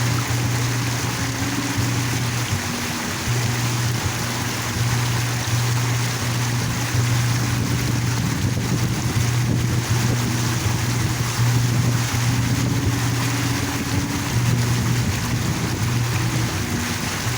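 A park water fountain splashing steadily, with soft background music of low held notes underneath.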